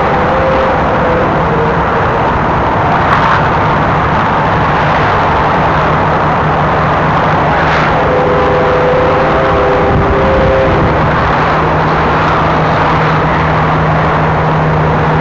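Freight train cars rolling past downgrade: a loud, steady rumble of wheels on rail with a low hum underneath, and short steady tones that come and go, strongest a little past the middle.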